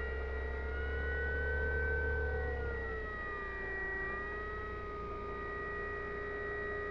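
Electric motor and propeller of a Volantex Saber 920 RC plane whining steadily in flight, the pitch wavering and dropping slightly about three seconds in.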